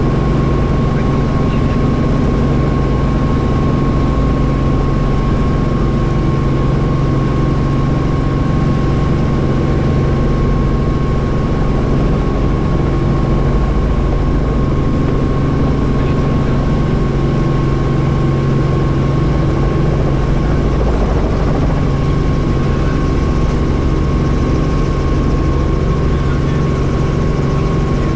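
Helicopter running in flight: a steady, loud engine and rotor drone with a constant high whine.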